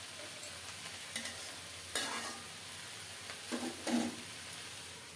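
Mixed vegetables sizzling in oil in a metal kadai while a metal spatula stirs them, with a few scraping strokes of the spatula against the pan.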